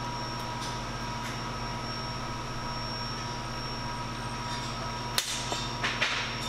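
Öhlins inverted fork tube knocking against the triple-tree clamps as it is slid and rotated up through them: a few faint ticks, then a quick cluster of sharp metallic clicks about five seconds in. A steady background hum runs throughout.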